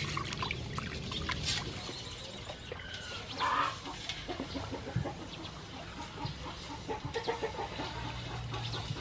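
Hands rubbing whole cuttlefish in salted water in a metal basin, with small irregular splashes and sloshes. A chicken clucks in the background about three and a half seconds in.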